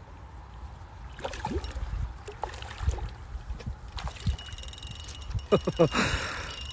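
Water splashing in irregular bursts as a hooked carp thrashes at the surface during the fight, over a low rumble.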